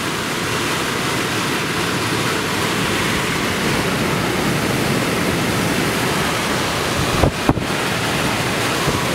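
Delphi heater blower motor from a UAZ Patriot running on test, its fan giving a strong, steady rush of air, with a brief knock about seven seconds in. The motor's bushings have just been oiled, and it is working again.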